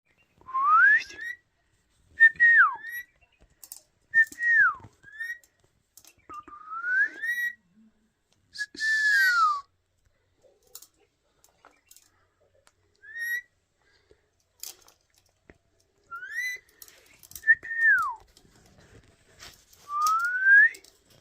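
Indian ring-necked parakeets whistling: a string of short, clear whistles every second or two, some sliding up in pitch and some sliding down, with one harsher, scratchy call about nine seconds in and faint clicks between the calls.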